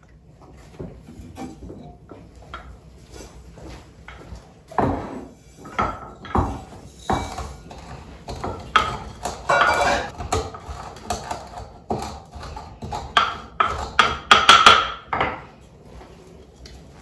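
Toasted seeds being crushed with a pestle in a small mortar: irregular knocks and gritty grinding in several bursts, the loudest near the end. Lighter clatters of a spoon and pans come first.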